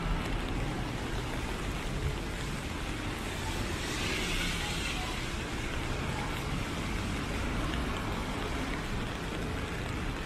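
Rainy city street ambience: a steady hiss of rain and traffic on wet streets, swelling briefly louder about four seconds in.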